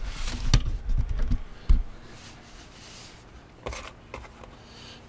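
A few dull knocks and small clicks of hands and tools working under a car. The two loudest knocks fall within the first two seconds, then only quieter scattered clicks over a faint steady hum.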